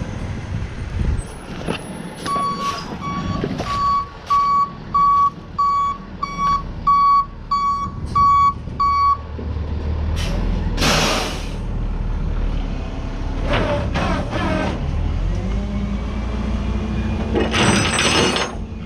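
Flatbed tow truck's backup alarm beeping, about a dozen evenly spaced beeps at under two a second, over the truck's engine running; the beeping stops about nine seconds in. A loud hiss of air follows about two seconds later, with a few shorter hisses or knocks near the end.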